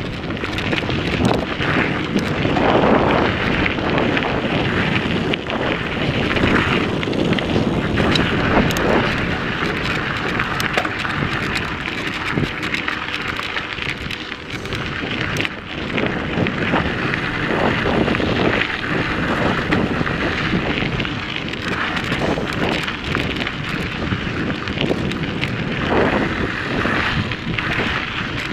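Mountain bike riding over a dirt and gravel trail: tyres crunching and the bike rattling and knocking over bumps, under continuous wind rush on the microphone.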